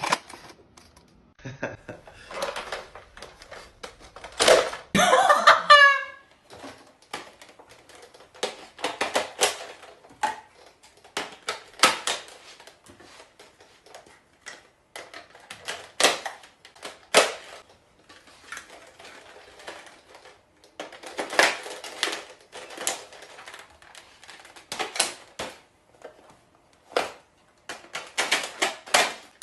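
Nerf foam-dart blasters clicking and firing in a rapid, irregular run of sharp plastic clicks and clacks, with a brief voice crying out about five seconds in.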